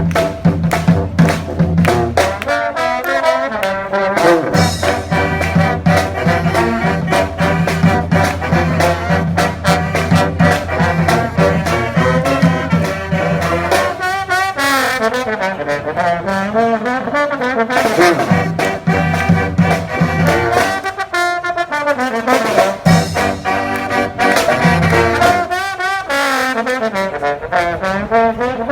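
Brass band playing, with trombones and trumpets over a sustained low bass line and steady drum hits.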